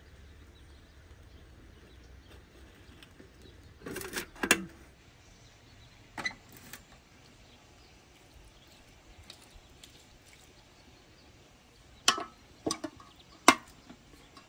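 Sharp clanks from handling aluminium cookware, several knocks in two clusters, loudest about four seconds in and again near the end, the last as the lid is set on the pot.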